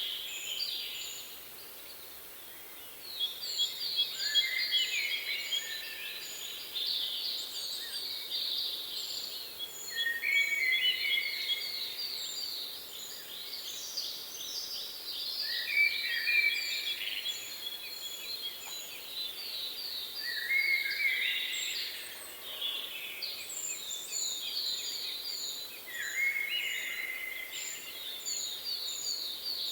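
Several songbirds singing at once: rapid overlapping chirps and trills, with strings of short, very high repeated notes above them. The song eases briefly about two seconds in, then carries on.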